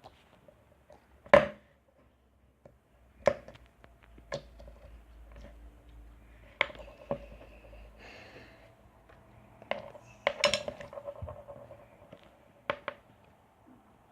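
A plastic slime container being handled and opened: a series of sharp clicks and taps, about nine spread out, some with a brief ring.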